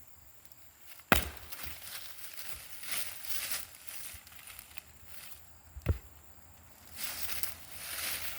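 Firewood being split: two sharp chopping strikes, one about a second in and a second near six seconds in, with rustling and knocking of the wood being handled between and after them.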